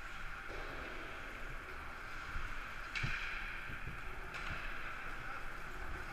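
Steady ambient noise of an indoor ice hockey game heard from the players' bench, with the distant scrape and clatter of play and the rink's hum, and a sharp knock about three seconds in.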